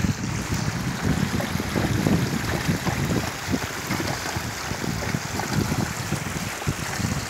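A horse wading through a shallow stream, its hooves splashing irregularly in the water over the steady rush of the flowing stream.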